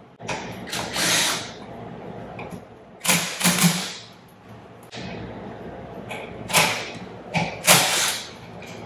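Cordless impact wrench running in several short bursts as it backs out the steel bolts holding the aluminium discharge manifold of an air-operated double-diaphragm pump.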